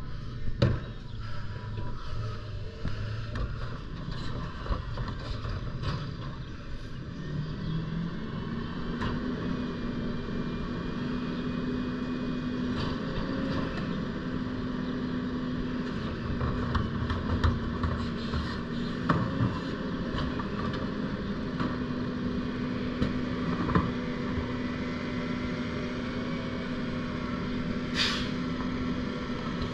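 Rear-loader garbage truck's engine rises in pitch about eight seconds in and holds a steady higher drone while the hydraulic packer compacts the load. Clanks and knocks from the cart and the packer mechanism are scattered through it, and there is a short hiss near the end.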